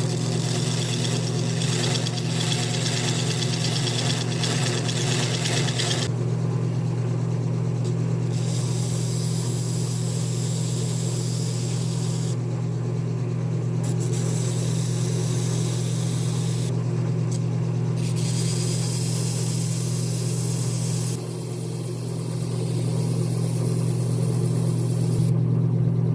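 Grizzly wood lathe running steadily with a low motor hum, while a tool is pressed on and off the spinning maple in spells of a few seconds, giving a hissing scrape each time it cuts.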